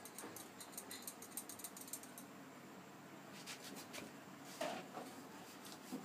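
Faint kitchen handling sounds of dough being worked on a stone rolling board with a wooden rolling pin: a run of quick light clicks at first, then a few soft knocks, the loudest about four and a half seconds in.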